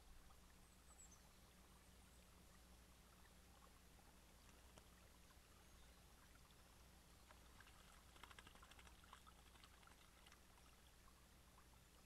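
Faint trickle of spring water running over stones, with a short run of faint splashes and clicks about eight seconds in.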